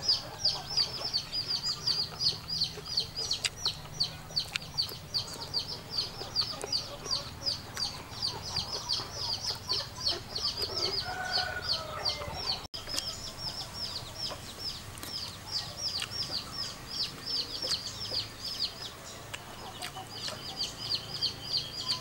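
Chick peeping: a continuous run of short, high, falling peeps, about four a second.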